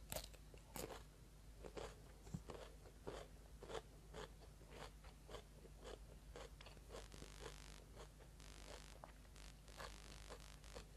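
A person biting into a raw cucumber: a sharp crunch right at the start and another just under a second later. Then crunchy chewing, about two or three crunches a second.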